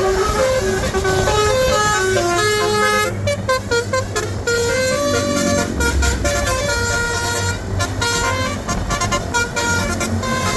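Basuri 'telolet' musical horn on a bus playing a tune, its held notes stepping up and down in pitch one after another, over a steady low hum.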